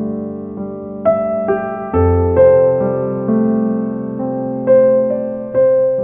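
Background music: slow piano, chords struck every second or so and left to ring and fade.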